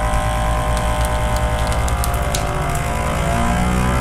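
FoodSaver vacuum sealer's pump motor running steadily, a hum with a whine on top, drawing the air out of a bag of raw steak. A few light crackles come through partway, and the pitch falls slightly near the end.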